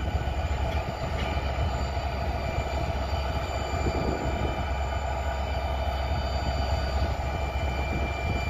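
EMD GT46AC diesel-electric locomotive rolling slowly up. Its diesel engine runs with a steady low rumble and a steady high-pitched whine over it.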